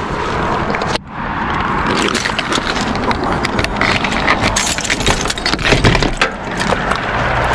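Keys jangling on their ring against a locked truck cap's rear door, with rapid metal clicks and rattles as the door's T-handle latch is gripped and the door pulled back, over a steady rushing noise.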